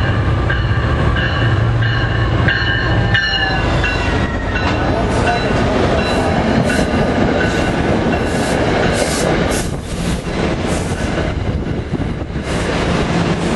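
New Jersey Transit commuter train, led by a PL42AC diesel, passing at speed close by. For the first three seconds there is a low drone with a few high steady tones over it. Then comes a loud rush of wheel and rail noise with repeated clacks as the multilevel coaches go by.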